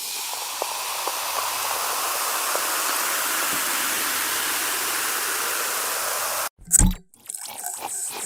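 A steady rushing hiss like white noise or running water, swelling slightly, for about six and a half seconds, then cutting off suddenly. A brief loud hit follows, and near the end a rhythmic electronic beat starts.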